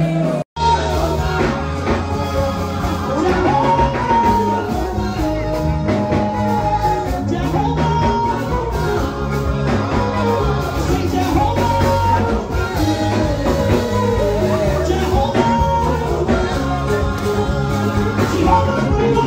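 Music with singing over a steady bass line; it cuts out for an instant about half a second in.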